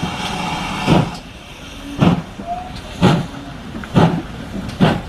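Steam locomotive pulling away with its train: exhaust chuffing about once a second, five beats that come slightly quicker towards the end. A steady steam hiss dies away about a second in.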